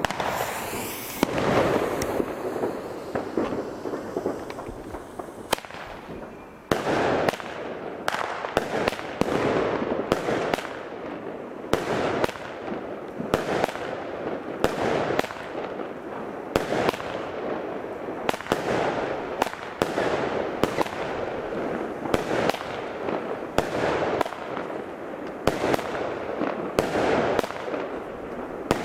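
Lesli Brutus 36-shot Pyromold salute battery firing: a brief fuse hiss, then shot after shot, each a sharp bang with a rumbling tail, about one or two a second.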